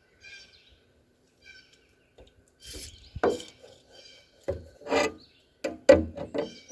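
Stiff, half-frozen steel hood hinge of a 1966 Chevrolet C10 being worked up and down to free it, giving a series of metal rubbing and scraping strokes. The strokes start a little under three seconds in and come faster and louder toward the end.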